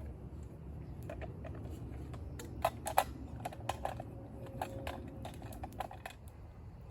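Metal camp cookware and utensils being handled: irregular sharp clicks and light knocks, loudest about three seconds in, with a brief faint ring in the middle.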